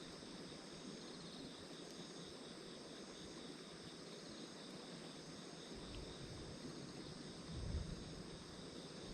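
Faint outdoor ambience of insects trilling steadily, with a low rumble coming in about two-thirds of the way through and a brief louder thump near the end.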